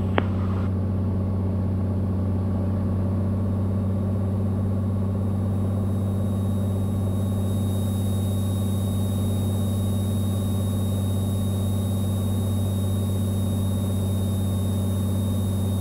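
Cessna 182 Skylane's six-cylinder piston engine and propeller droning steadily in flight, heard from inside the cockpit. A thin, high, steady tone joins in about six seconds in.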